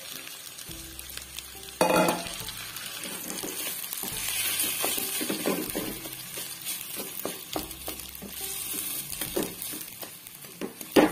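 Mashed-potato and onion filling for aloo paratha being stirred and scraped with a wooden spatula in a hot oiled pan. The oil and cumin seeds sizzle as the filling fries to dry out the onion's water. There is a louder knock about two seconds in and another near the end.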